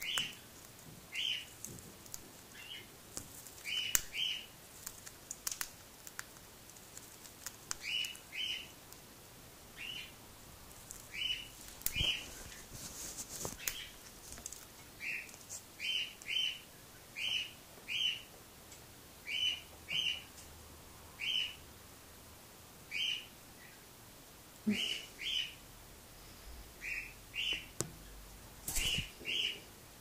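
Cockatiel giving short chirps, often two in quick succession, repeated every second or two, with a few faint clicks between them.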